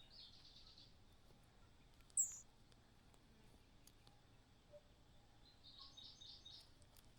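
Faint bird calls: a short, high, descending call about two seconds in, and two brief runs of quick high chirps, one at the start and one about six seconds in.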